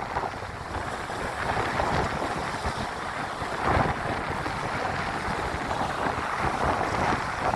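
Sea waves and wind, with wind buffeting the microphone: a steady rushing noise with a rumbling low end that swells briefly a few times, about two seconds in, near four seconds and near the end.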